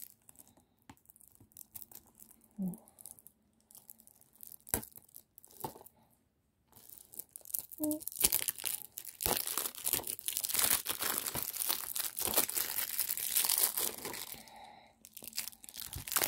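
Clear plastic shrink wrap being picked at and torn off a Blu-ray case: scattered crackles at first, then from about halfway in several seconds of continuous crinkling and tearing.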